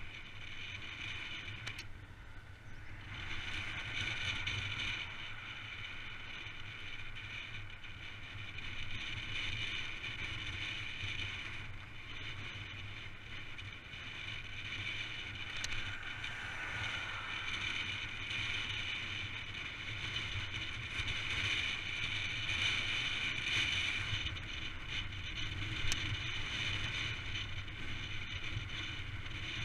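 Steady wind rush and tyre roar from a cross-country mountain bike descending a road at speed, with a steady high hum over a low rumble. It grows louder about three seconds in, and there is a single sharp click near the end.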